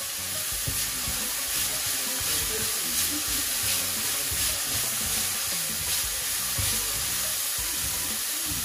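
Vegetables and seasoning sizzling steadily in hot oil in a frying pan, with occasional stirring.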